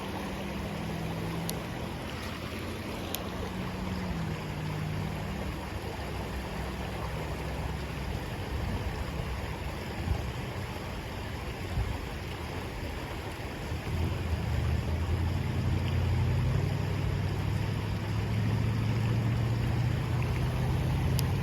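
Steady rush of flowing river water, with a low wind rumble on the microphone that grows louder about two-thirds of the way through.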